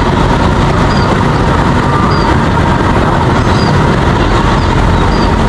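6-inch FPV quadcopter in flight: a loud, steady rushing of propeller wash and wind with a faint, unchanging whine.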